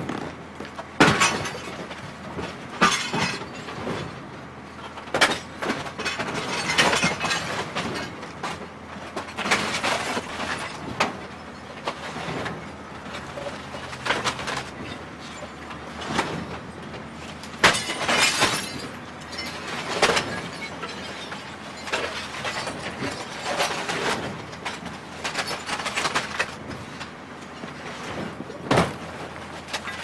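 A television being crushed: continuous cracking and crunching as it breaks apart, broken by many irregular sharp cracks.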